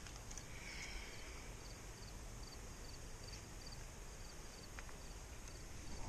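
Quiet outdoor background: a steady low hiss with a faint, regular high chirping of an insect, about three chirps a second, starting a second or two in.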